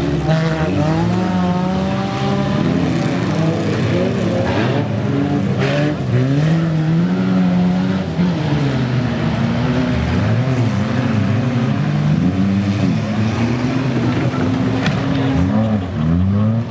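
Engines of several wreck-race cars revving hard, their pitch rising and falling and overlapping as the cars accelerate and lift off.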